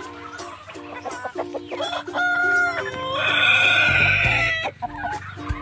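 Free-range chickens clucking, with a rooster crowing once about three seconds in, a loud call lasting about a second and a half.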